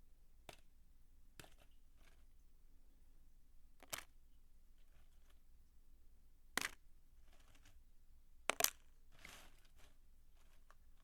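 Dry soap crunching in a few sharp, separate snaps, the loudest about six and a half and eight and a half seconds in, followed by a brief crumbly rustle.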